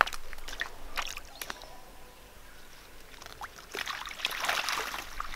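Feet wading through shallow water with a few small splashes, then from about four seconds in water pouring and dripping off a net yabby trap as it is lifted out of the waterhole.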